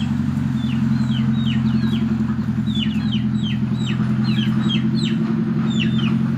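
A small engine running steadily with an even, fast pulse, and over it repeated short, high peeps of chicks, each falling in pitch and often coming in twos or threes.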